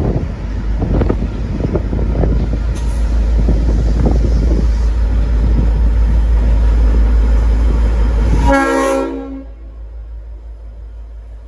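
V/Line N class diesel locomotive running loudly as it hauls its train out, then, about eight and a half seconds in, a short chord blast on its Leslie RS5T multi-chime horn that cuts off suddenly, leaving much quieter noise.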